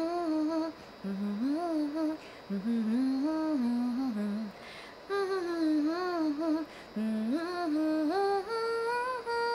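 A woman humming a slow, simple tune in short phrases with brief pauses between them.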